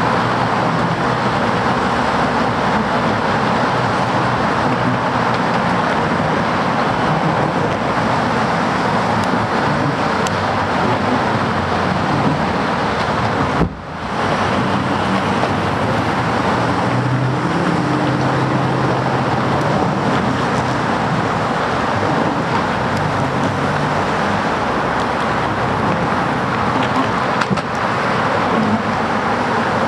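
Steady noise of road traffic with a low engine hum passing through at times. It cuts out for a moment about halfway through.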